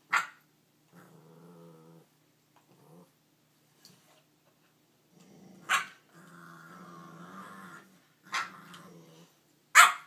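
Dogs growling in a run of low rumbles in a tussle over a bone, broken by four short, sharp barks, the last one the loudest.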